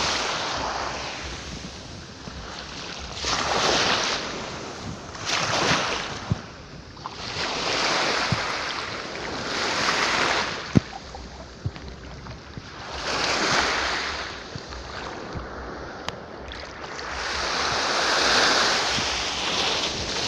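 Sea waves breaking and washing up the beach, the surf swelling and falling back every two to three seconds, with some wind on the microphone.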